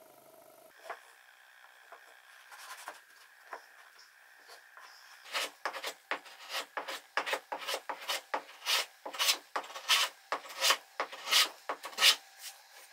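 Metal hand plane shaving the edge of a pine board in quick, repeated strokes, two to three a second, each a short rasping swish. The strokes begin about five seconds in, after a few faint handling sounds.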